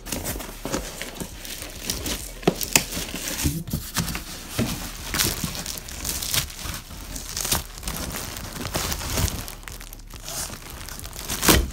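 Clear plastic wrapping on chair parts crinkling and rustling as the parts are pulled out of a cardboard box: irregular crackles throughout, with a louder crackle near the end.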